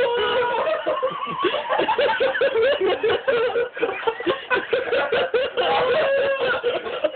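People laughing and snickering without a break.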